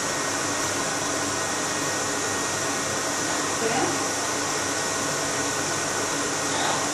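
Steady hiss and hum of a running electric fan, with a faint short parrot call about four seconds in.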